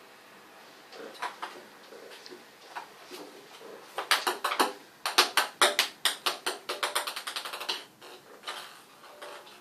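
A cat's claws and paws skittering and tapping on a hard bathtub surface: scattered clicks at first, then a quick, loud run of clicks from about four seconds in to about eight seconds in, tapering off.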